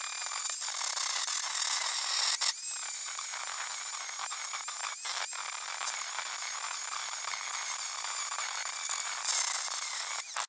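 Angle grinder grinding back dirty welds on a car's steel door pillar: a steady high motor whine over the rasp of the disc on metal, with a few brief breaks as the disc comes off the work.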